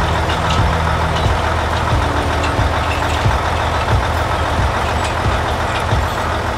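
Sound effect of a tractor and a forage harvester running steadily: a low engine drone under a hiss of machinery noise, with a few faint knocks.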